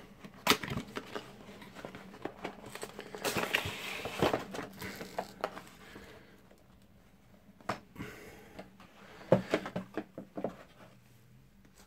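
A cardboard box being opened and handled: a rustling, scraping stretch as the lid comes off, with scattered taps and knocks of the cardboard and the packed parts inside.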